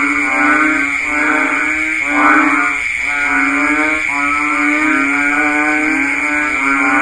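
Several banded bullfrogs (Kaloula pulchra) calling in chorus: long, low calls of about a second each, one after another and overlapping, over a steady high-pitched drone.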